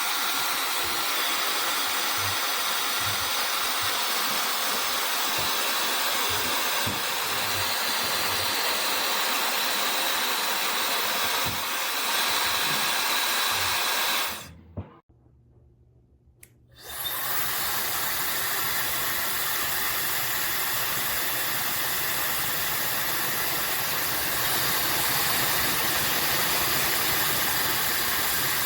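OSOU 1200 W high-speed hair dryer blowing steadily, switched off about halfway through and switched back on about two seconds later.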